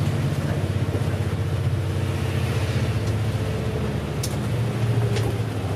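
Bus engine and cabin noise heard from inside a moving bus: a steady low drone, with two faint clicks about four and five seconds in.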